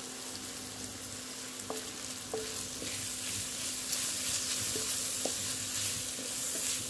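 Onions and carrots with freshly added turmeric and chilli sizzling in oil in a kadai on an induction cooktop, stirred with a wooden spatula that taps the pan a few times. The sizzle grows a little louder about halfway through as the spices roast.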